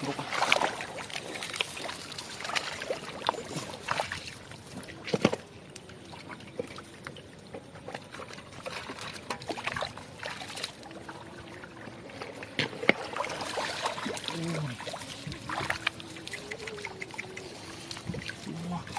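Shallow floodwater splashing and trickling with irregular sharp knocks, typical of wading and working fish out of a flooded field. The splashing is busiest in the first few seconds and again a little past the middle.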